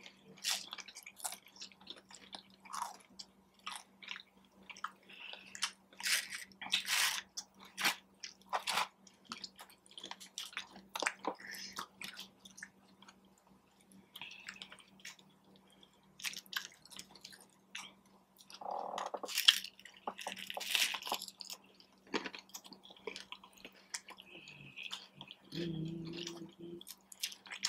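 Close-miked eating sounds of crunchy tacos and nachos: short crisp bites and crunching chews scattered throughout, with a few louder crunches about two-thirds of the way in.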